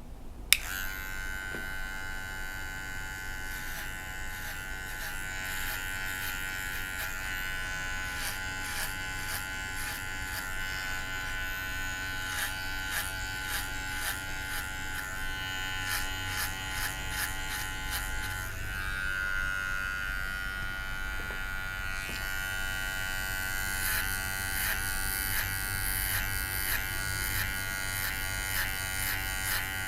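Electric hair clippers switched on with a click about half a second in, then buzzing steadily while trimming short hair. The pitch shifts slightly about two-thirds of the way through.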